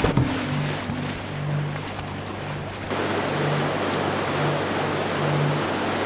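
Rushing whitewater of a river rapid, a steady roar of water, with a faint low background music line repeating underneath. About three seconds in, the water sound changes to a fuller, brighter rush.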